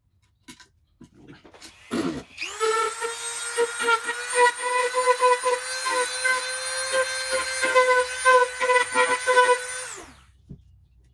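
A handheld power tool's motor spins up with a brief rising whine and runs at a steady high pitch for about eight seconds, with scattered clicks and knocks as it works out small rivets holding the emblem together, then winds down.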